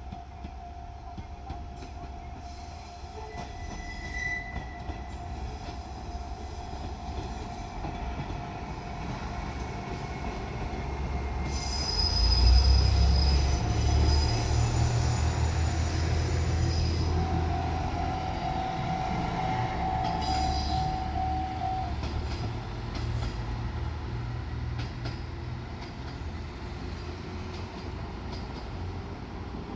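JR Shikoku 1500 series diesel railcar passing close by. A deep rumble of engine and wheels on rail swells to its loudest about twelve seconds in, and a high wheel squeal is heard for several seconds. Through much of it a level crossing's warning bell rings.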